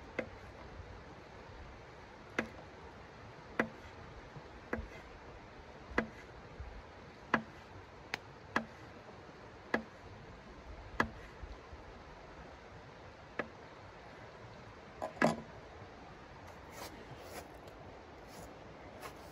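Folding knife slicing a sausage into rounds on a hard tabletop: a sharp tap each time the blade cuts through and meets the table, roughly one every second or so, about a dozen in all. A louder knock comes near the end.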